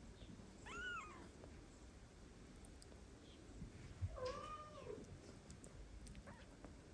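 Cats meowing faintly, two separate meows: a short, higher one that rises and falls about a second in, then a longer, lower one a little after four seconds that drops in pitch at its end.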